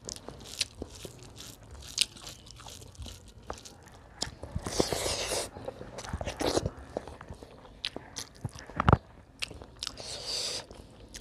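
Close-up eating sounds of a person biting and chewing food: many small wet mouth clicks, with two louder, noisier stretches of biting about five seconds in and near the end, and one dull thump near nine seconds.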